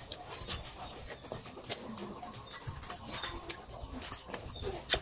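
Close-up mouth sounds of people eating chicken liver and gizzard adobo with rice: chewing, wet lip smacks and many sharp little clicks, with the occasional breath.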